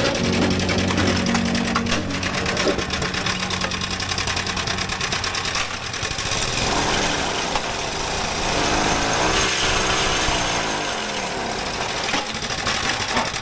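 Concrete block-making machine running with a fast, steady rattle. About seven seconds in, a humming tone glides up and then falls away over a few seconds.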